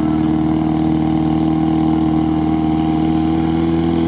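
GAZ-63 truck engine running steadily under load as the truck wades hood-deep through a river, its pitch creeping slightly upward.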